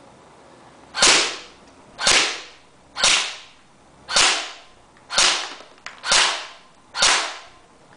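JG HK416 airsoft electric rifle firing single shots, about one a second: seven sharp cracks, each dying away quickly, with an eighth right at the end.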